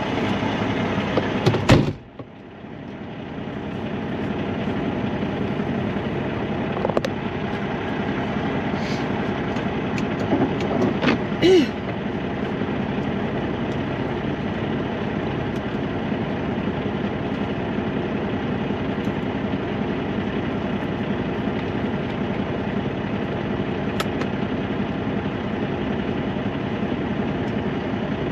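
Semi truck's diesel engine running steadily. A sharp knock about two seconds in, then the sound drops away and builds back up over the next two seconds; a small knock and a brief squeak come around eleven seconds in.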